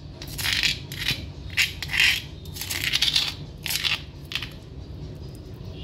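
A utensil scraping ground tamarind chutney off a stone grinding slab and into a ceramic bowl, in a series of short, irregular scrapes and knocks.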